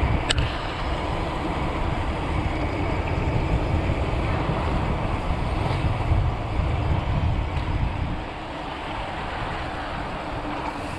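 Wind rushing and buffeting on the microphone of a bicycle rolling fast down a paved street: a steady low rumble that eases slightly about eight seconds in. One sharp click comes just after the start.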